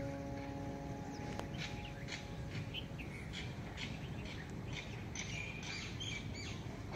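Small birds chirping, many short high calls in quick succession over a steady low background hiss. A struck, chime-like note rings and fades away in the first second.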